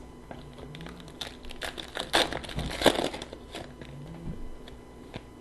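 Hockey trading-card pack wrapper being torn open and crinkled, with cards handled in the hands: a run of short papery crackles and rustles, busiest in the middle.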